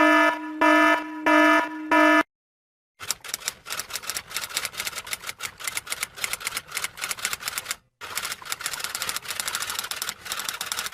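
Four short electronic beeps, then after a brief pause a long run of rapid typing clicks with a short break about five seconds into it.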